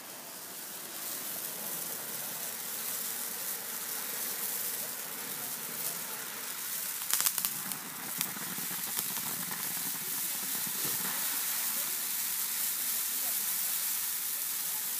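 Ground fountain fireworks spraying sparks with a steady hiss that builds about a second in, with a few sharp crackling pops about seven seconds in and once more about a second later.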